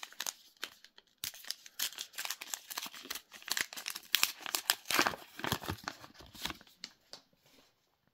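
Plastic foil wrapper of a trading card booster pack being torn open and crinkled in the hands, a rapid run of sharp crackles that stops near the end.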